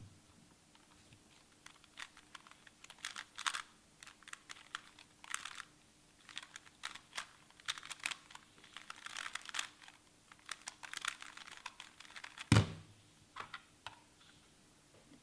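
Rapid plastic clicking and clacking of a MoYu Weilong Square-1 puzzle being turned quickly during a timed solve, in uneven flurries. About twelve and a half seconds in comes a single loud thump, the loudest sound, followed by a few light clicks.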